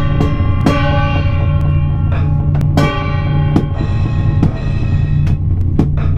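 Loud live band music: drums hitting over sustained, droning pitched instruments and heavy bass. The hits come quickly at first, then thin out.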